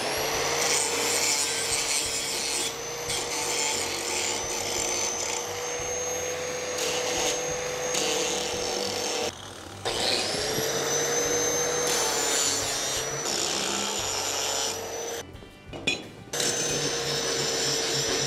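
Angle grinder rounding over the edges of thin 1/8-inch steel bracket pieces held in a vise: a steady motor whine with a gritty grinding rasp. It stops briefly about nine seconds in and spins back up, then pauses again for about a second near fifteen seconds.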